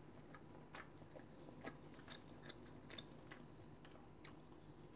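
Faint chewing of a chewy egg-white tekwan ball: soft, irregular mouth clicks over a low steady hum.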